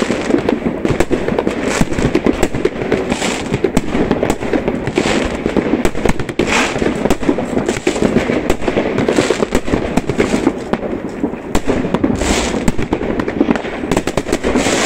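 Aerial fireworks bursting in a dense, unbroken barrage of bangs and crackling, with a few louder blasts standing out.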